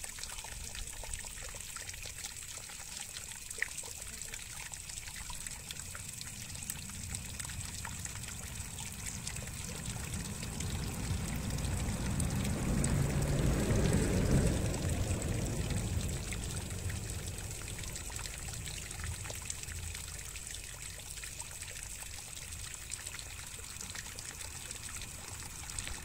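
Water trickling and pouring steadily, swelling louder and fuller for a few seconds around the middle.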